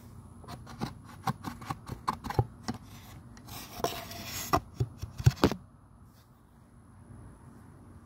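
Drilled fiberglass plate handled against the steel driveshaft of an outboard lower unit: a run of small clicks and knocks with a short scraping rub in the middle, stopping about five and a half seconds in.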